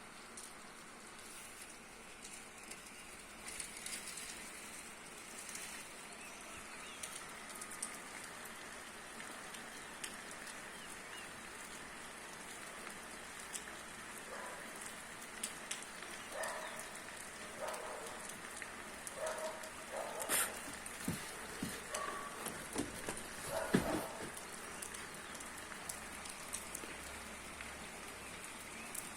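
Steady rain falling, an even hiss with scattered drip clicks. Through the middle there is a run of short higher-pitched sounds, and a sharper knock comes a few seconds before the end.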